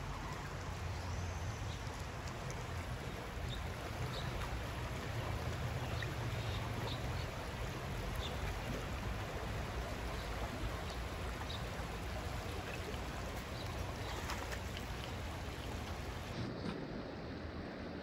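Shallow creek water rushing over stones, a steady hiss with a low rumble; the sound changes slightly near the end.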